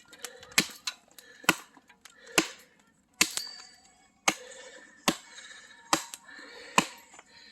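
Wood being chopped by hand: eight sharp, evenly paced strikes, a little under a second apart.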